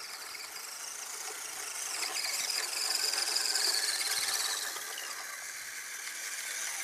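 High-pitched electric motor and gear whine of radio-controlled scale crawler trucks driving toward the microphone. It swells about three seconds in, eases off, then builds again near the end as the nearest truck closes in.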